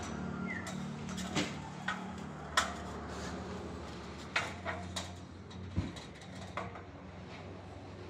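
A sawmill's engine running steadily, not cutting, under about ten scattered sharp knocks and clunks that come mostly in the first six seconds.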